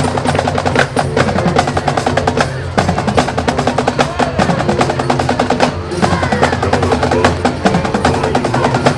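High school marching band playing: fast snare-drum figures and rolls over held low brass chords, with short breaks in the drumming about three and six seconds in.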